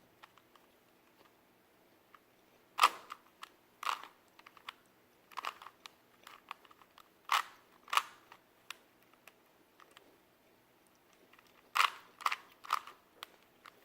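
Plastic Rubik's Cube layers being twisted by hand: short, sharp clicks and clacks at irregular intervals, with pauses between turns and a quick run of several clicks near the end.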